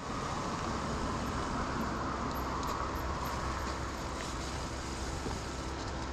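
Mountain bike rolling along at speed: a steady rush of tyre noise and wind on the microphone, with a low rumble underneath.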